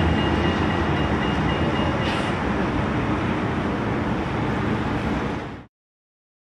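Street traffic noise: a steady low rumble of passing vehicles, with a faint thin high whine in the first two seconds. It cuts off abruptly near the end.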